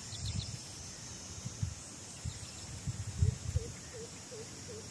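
Open-air ambience: a steady high insect buzz, a few short bird chirps, and a short call repeated about twice a second in the second half. Low thumps sound underneath, the loudest about three seconds in.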